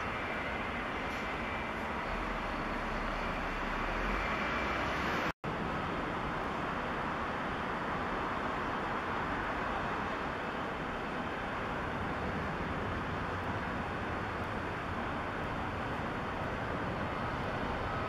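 Jet airliner engines, a steady rushing sound: first a large airliner on the runway, then, after a split-second gap about five seconds in, a Boeing 787 on final approach.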